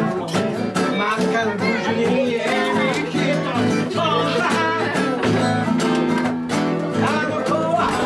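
Live band music: an electric guitar and an acoustic guitar playing a song together, played continuously.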